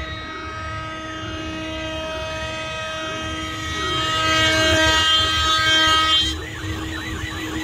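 CNC metal milling machine's spindle and end mill cutting aluminium: a steady whine of several held tones, with a pitch that rises and falls over and over. About six seconds in the sound drops and the higher tones stop.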